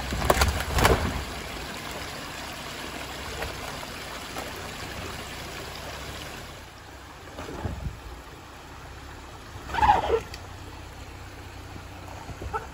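Off-road pickup crawling slowly over rocks in a muddy creek bed: a low engine hum under trickling water, with loud sudden clatters in the first second and another short sound about ten seconds in.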